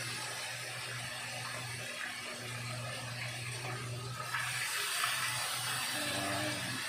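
Chicken pieces frying in oil in a pan over low heat, a steady sizzle.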